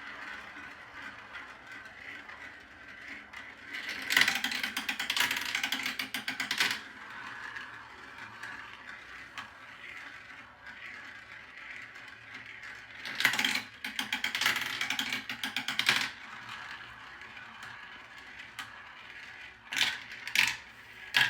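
Marbles rolling and rattling down a marble run track, with runs of rapid clattering clicks about four seconds in, again around thirteen seconds, and near the end.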